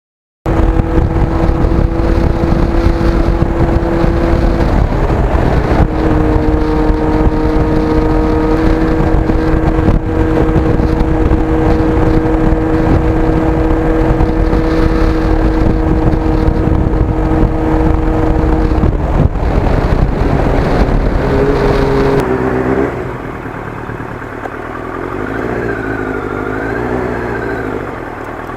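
Kawasaki GPX750R Ninja's inline-four engine running at steady cruising speed under heavy wind rush on the microphone. The engine note holds steady, stepping to a new pitch a few times. About 22 seconds in, the bike slows, the wind drops away and the engine falls quieter.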